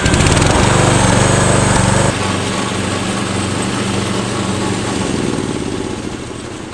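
Riding lawn mower's engine running fast for about two seconds, then settling to a lower steady speed and fading near the end.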